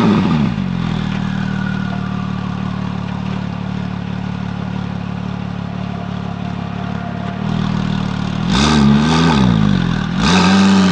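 Porsche Boxster S 987's 3.2-litre flat-six through a Capristo valved exhaust, its revs dropping from a start-up flare into a steady idle. About eight and ten seconds in, two quick throttle blips rise and fall.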